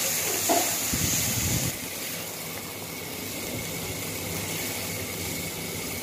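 Minced meat with spices and a splash of water sizzling and hissing in a wok as it is fried and stirred with a spatula. The hiss is louder for about the first second and a half, then settles into a steadier, quieter sizzle.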